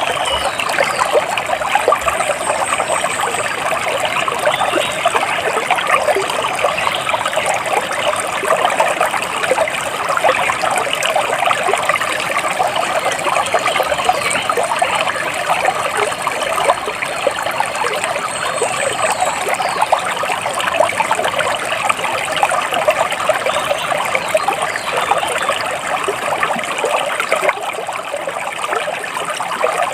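Water splashing and trickling steadily, with a few faint, high bird chirps.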